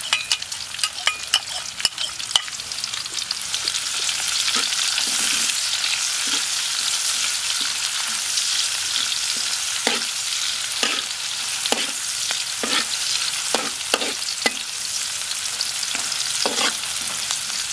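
Chopped garlic and sliced shallots sizzling steadily in hot oil in a metal wok, while a metal spatula scrapes and taps against the pan in short strokes, a quick run of them in the first couple of seconds and more spaced strokes through the second half.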